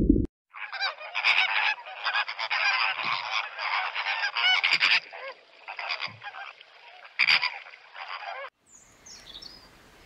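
A flock of flamingos honking, many goose-like calls overlapping in a busy chorus, which stops abruptly near the end.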